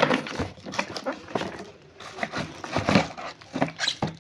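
Irregular knocks, clicks and rustles of a plastic foam cannon bottle and its packaging being handled.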